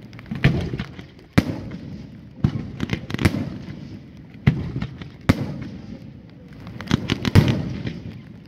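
Fireworks display: a string of sharp bangs from bursting shells, about ten in all at uneven gaps, with a rolling rumble between them. The loudest bang comes near the end.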